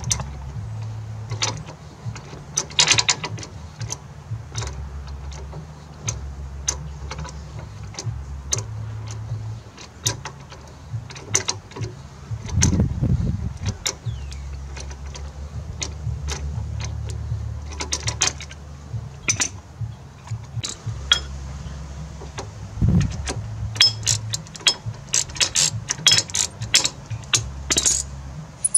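Socket ratchet clicking in short runs as a nut on a car's front strut is turned, the clicks coming faster and more tightly bunched near the end.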